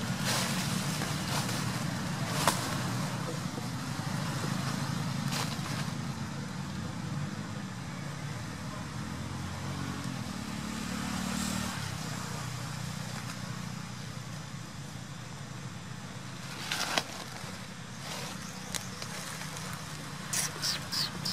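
A steady low engine hum, like a vehicle idling, runs throughout. Over it come a few sharp crackles of dry leaf litter: one about two and a half seconds in, one near 17 seconds, and a quick run of them near the end.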